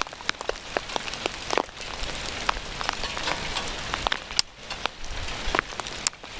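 Hail falling with rain: hailstones strike nearby surfaces in many irregular sharp clicks over a steady hiss.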